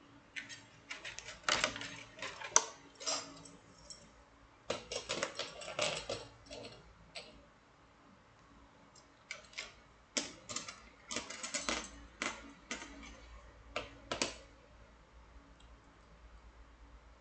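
Metal wire puzzles clinking and clicking as they are handled, in irregular clusters of light clicks separated by short pauses.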